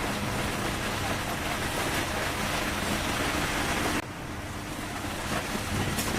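Laser welding machine running: a steady low hum under a loud airy hiss, the hiss dropping away suddenly about four seconds in.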